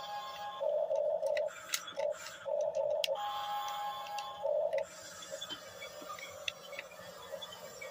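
Small electric drive motors and gearboxes of an RC bulldozer whining in short starts and stops, several bursts in the first five seconds, then a fainter steady hum with light ticking.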